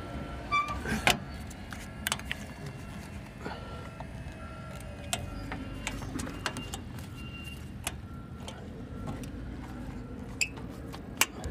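Sharp metal clicks and knocks from a make-up air unit's sheet-metal control-panel door being swung shut and its latch handle turned, over a steady low hum.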